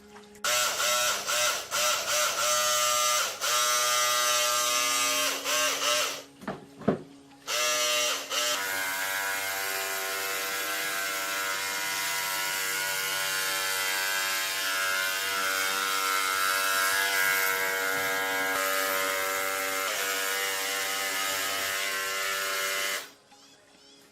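Small electric power-tool motor running at high speed with a steady whine. It starts and stops in short runs during the first six seconds, then runs steadily after a brief pause. Its pitch dips briefly several times as it is loaded against the work.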